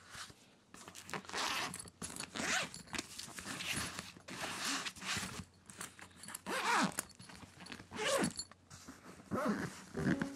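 Zipper on a padded guitar gig bag being pulled closed in a series of short strokes with brief pauses, as the zip is worked around the guitar's body.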